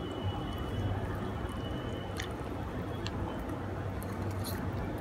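Wire whisk stirring thick cake batter in a glass bowl with wet squelching, as milk is worked in to loosen the stiff batter. A few light clicks of the whisk against the glass come about two, three and four and a half seconds in.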